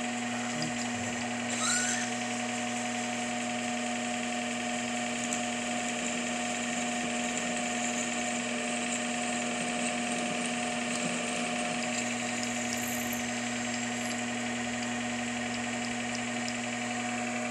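Metal lathe running at a steady speed, its motor and gears giving an even hum, while a twist drill in the tailstock is fed into the spinning part to drill its center hole.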